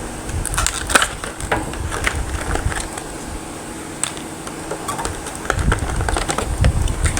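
Crinkling plastic packaging, with irregular clicks and rustles as a USB-to-SATA cable is handled and taken out, and a few dull handling bumps near the end.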